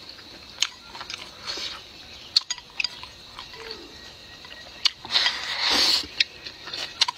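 Close-up eating sounds: chewing with scattered sharp clicks, then a loud slurp lasting about a second, about five seconds in, as rice in broth is sucked in from the bowl's rim.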